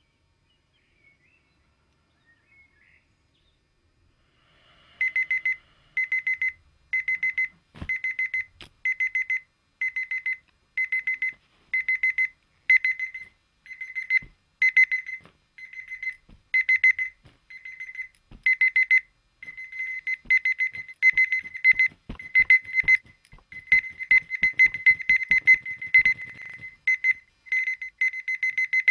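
Dumbbell alarm clock sounding, starting about five seconds in: a high electronic beep repeating in short bursts, about one and a half a second, that later come as quicker runs of rapid pulses. Scattered knocks sound alongside.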